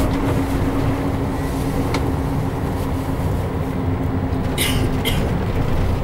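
Steady engine and road noise inside a moving tour coach, with a steady low hum that stops about five seconds in and two short hisses near the end.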